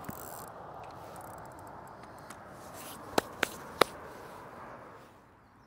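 Fishing rod and reel being set down on metal bank-stick rests, with three sharp clicks a little after three seconds in. A steady hiss underlies them and falls away about five seconds in.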